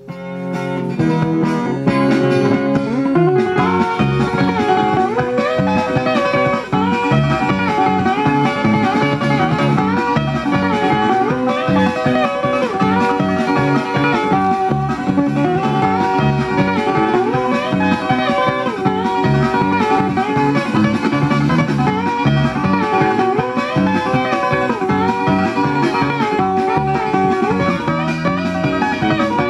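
Vinyl LP playing on a Pioneer PL-41 turntable: guitar-led music with bending notes in a steady rhythm, coming up to full level within the first second as the stylus leaves the lead-in groove.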